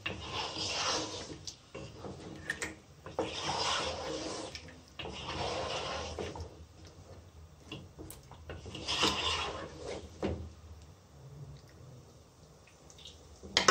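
Wooden spoon stirring a thick meat-and-yogurt curry in a steel pot: several stirring strokes a few seconds apart, with a sharp knock near the end.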